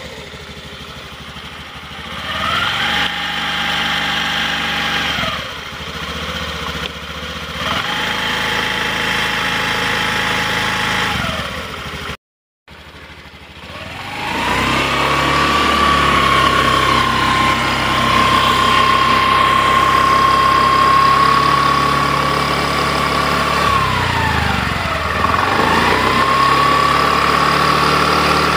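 Honda Activa 6G scooter's 110 cc single-cylinder four-stroke engine revved on the centre stand with the rear wheel spinning. There are two short revs, then after a brief gap one long rev held steady for about eight seconds, which drops back and climbs again near the end.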